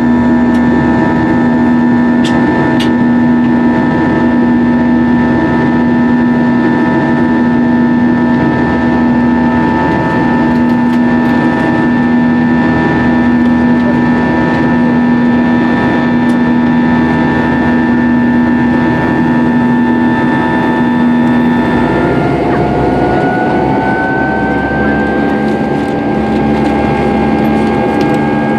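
Airbus A320 jet engines running steadily, heard from inside the passenger cabin, with a steady hum and several whining tones. About two-thirds of the way through, the engine tone shifts as the power setting changes, and a whine then rises slowly in pitch.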